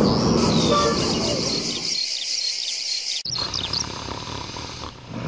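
Night-time ambience of high chirping calls repeating about twice a second over a low rumbling background. The low background drops out about two seconds in, and just after three seconds the chirps change to shorter, quicker ones.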